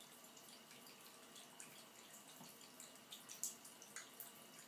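Faint trickle of a thin stream of water from a bathtub spout, with small irregular splashy clicks as a cat laps at the stream with its tongue, one sharper splash about three and a half seconds in.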